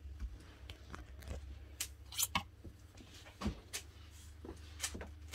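Plastic clothes hangers clicking and scraping along a wardrobe rail, with fabric rustling as garments are pushed aside, in irregular short bursts.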